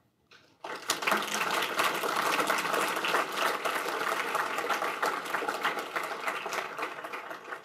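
Audience applauding: many hands clapping, starting about half a second in and thinning out near the end.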